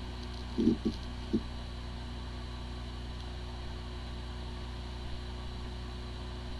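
Hard drive spinning with a steady hum made up of several fixed tones, with a few short low bursts in the first second and a half. The drive spins normally but cannot be accessed, the symptom of disk firmware corruption.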